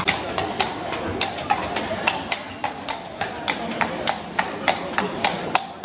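A carriage horse's hooves clip-clopping on cobblestones at a walk, about three to four sharp strikes a second, over crowd chatter.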